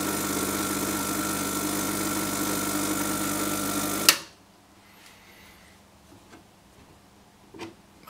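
Gaggia Selector Deluxe espresso machine's pump buzzing steadily as it pushes water through the group head and portafilter during a degreasing cycle, cutting off suddenly about halfway through. A faint knock follows near the end.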